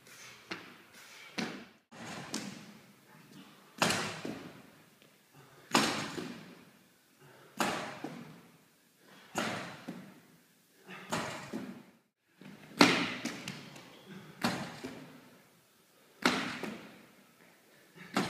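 Repeated heavy thuds of workout impacts, such as a thrown medicine ball hitting the wall or floor, about one every two seconds, each one echoing in a large sports hall.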